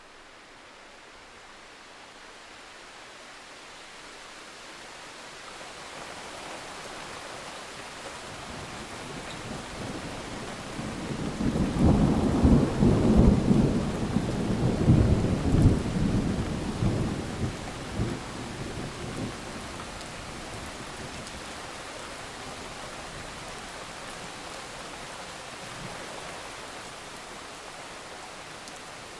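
Rain falling steadily, swelling gradually at first. About eleven seconds in a long roll of thunder builds into loud, crackling rumbles for several seconds, then dies away into the rain.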